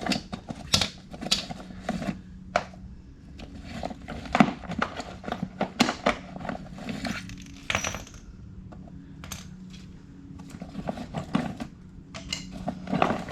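Metal hand tools clinking and rattling irregularly as someone rummages through them looking for an Allen key, over a steady low hum.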